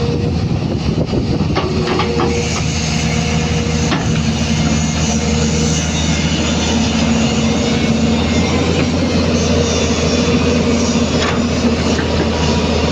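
Hyundai 215 hydraulic excavator's diesel engine running steadily under load, with a few sharp metallic clanks in the first few seconds and one more near the end.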